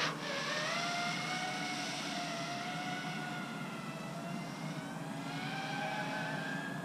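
FPV freestyle quadcopter's brushless motors whining with the throttle. The pitch climbs sharply out of a dip at the start, holds fairly level, then rises again near the end.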